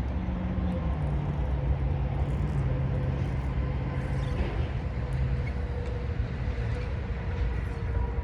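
Car engine and road noise while driving, a steady low rumble with an engine hum that drops in pitch in a couple of steps.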